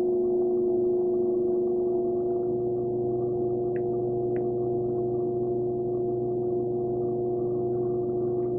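Electric pottery wheel motor humming steadily as the wheel spins under clay being centered, with a lower hum coming up about two and a half seconds in. Two faint ticks about four seconds in.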